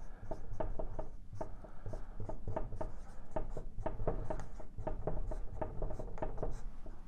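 Dry-erase marker writing on a whiteboard: a quick run of short strokes, one after another, as a word is written out.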